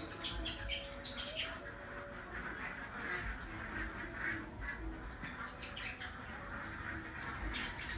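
Wet splashing and slapping of a scalded duck carcass being dipped and plucked in a pan of hot water, with irregular sharp wet clicks as feathers are pulled.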